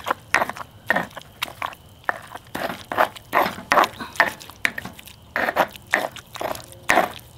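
Pestle working in a stone molcajete, crushing and grinding tomato, onion, garlic and chile into salsa: irregular crunching and scraping strokes, two to three a second.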